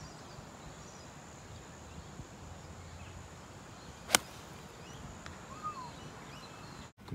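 A golf iron striking the ball off grass: one sharp crack of impact about four seconds in, over a faint outdoor background.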